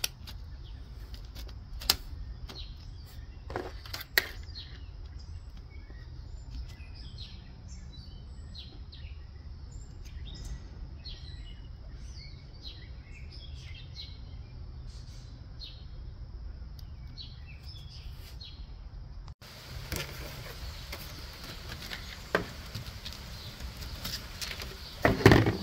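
Small birds chirping in the background over a steady low rumble, with a few sharp clicks and knocks of hard plastic toy parts being handled, the loudest cluster near the end.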